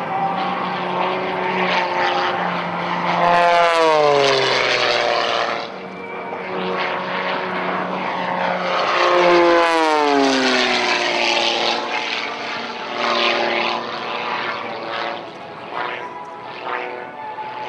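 Propeller airplane flying two low passes about six seconds apart. Each time, the engine and propeller drone swells and then drops in pitch as the plane goes by.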